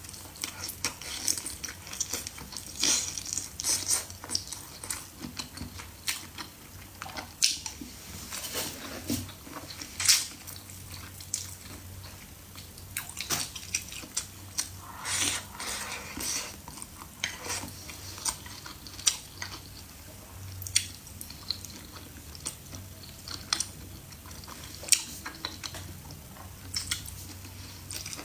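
A person chewing and biting food close to the microphone: a steady run of short, sharp wet smacks and crunchy clicks.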